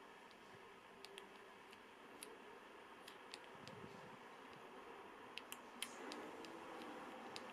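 Faint clicks of a Panasonic GH5's rear control dial being turned notch by notch: about a dozen short single clicks at uneven spacing over a low hiss.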